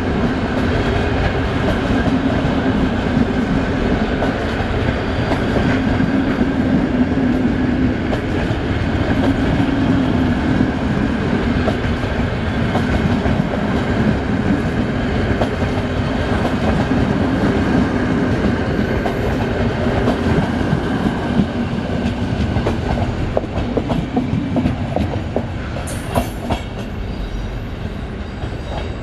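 A train of vintage FS passenger coaches rolling past close by: a steady rumble of wheels on the rails with a running hum and a clickety-clack. Near the end it draws away and grows quieter, with a few sharp clicks.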